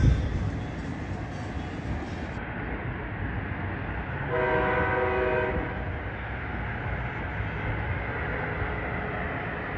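Amtrak Acela high-speed train running past with a steady rumble, sounding one horn blast of about a second and a half about four seconds in.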